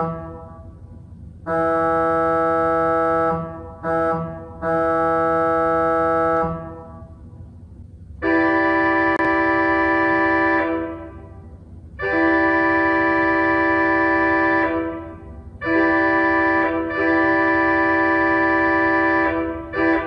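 Pipe organ playing held chords that imitate North American train horns, each blast ringing out in the room afterwards. First comes a long, a short and a long blast of a chord voicing an A200 horn, then, from about eight seconds in, four blasts of a different, brighter chord voicing an SL4T horn.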